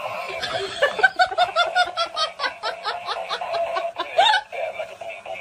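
A person laughing hard: a long run of quick 'ha-ha-ha' pulses, about five a second, starting about a second in and stopping a little after four seconds.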